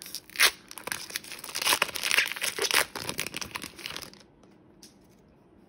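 Foil wrapper of a Pokémon card booster pack being torn open and crinkled by hand, with a sharp rip about half a second in; the crinkling stops about four seconds in.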